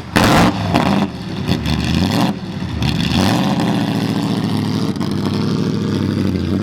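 Vintage Alfa Romeo sports car engine revving in several short blips over the first three seconds, then running at a steady speed.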